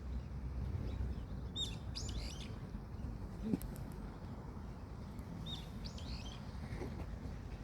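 A songbird singing two short phrases of quick high chirps, a few seconds apart, over a steady low rumble.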